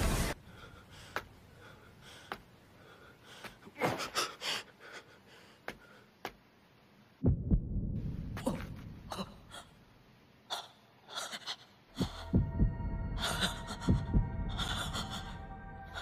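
Anime fight-scene sound effects: sharp hits scattered through the first half, then a low rumble that comes in suddenly about seven seconds in. Over the last few seconds a steady pitched hum plays with repeated low thumps.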